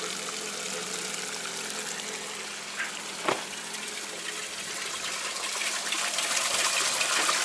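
Treated water from a sewage treatment station's float-switch pump gushing steadily out of the discharge pipe into a ditch, a little louder toward the end, with one short knock about three seconds in.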